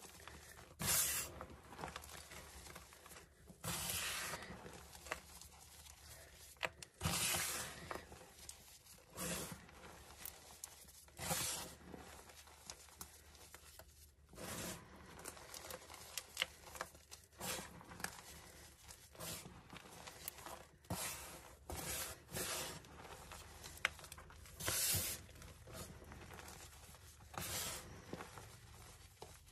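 Hands rubbing, squeezing and sifting crushed gym chalk powder and crumbles: repeated soft swishes of grinding powder every second or two, with small clicks of chalk crumbs among them.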